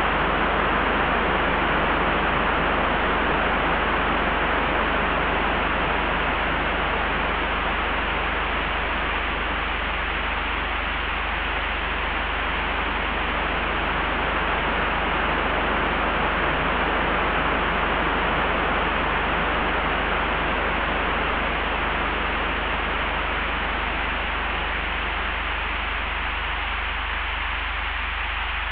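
Layered wind ambience: a steady rush of wind that swells and eases slowly, over a deep, constant low rumble.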